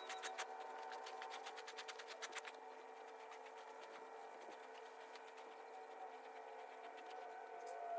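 Faint, steady machine hum made of several held tones, with a rapid run of clicks, about ten a second, that stops about two and a half seconds in.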